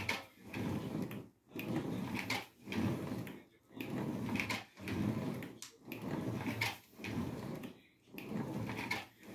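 An ab wheel rolling back and forth on a tiled floor. Each rolling stroke lasts just under a second, with a short pause between strokes, about one stroke a second.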